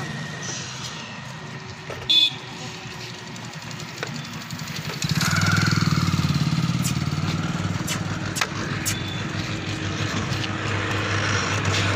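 A motorcycle engine running nearby, its steady hum growing louder about five seconds in, with a short sharp horn toot about two seconds in.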